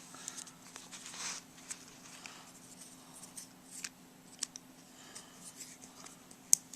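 Small handling sounds of a flip phone being taken apart with a small screwdriver: scattered light clicks and ticks of metal on plastic, a brief scraping rasp about a second in and a sharp click near the end, over a steady low hum.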